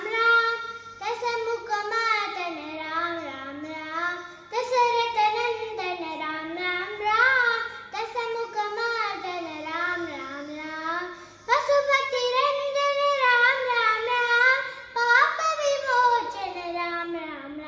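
A young boy singing a Rama bhajan in Carnatic style, unaccompanied, in long phrases whose pitch bends and glides in ornaments. A new phrase begins about every three and a half seconds.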